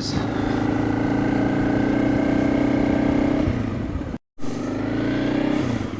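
Honda CRF300 Rally's single-cylinder engine running steadily under way, easing off a little about three and a half seconds in, then, after a brief cut, climbing in pitch as the bike accelerates.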